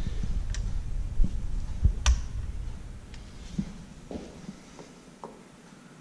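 Light clicks and small knocks of hand tools being handled and set down on a workbench. The sharpest click comes about two seconds in, and a low rumble fades out after about three seconds.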